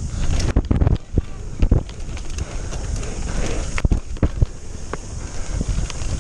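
Wind buffeting the microphone as a Specialized Enduro mountain bike descends a dirt trail at speed, with the hiss of tyres on dirt and sharp knocks and rattles from the bike over bumps.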